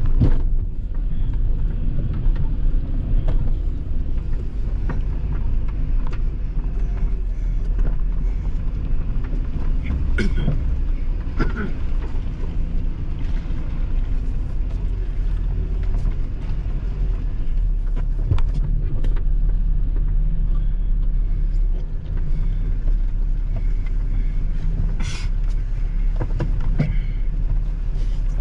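Off-road 4x4 truck driving slowly over a rough trail: a steady low engine and drivetrain rumble, with scattered sharp knocks and clunks.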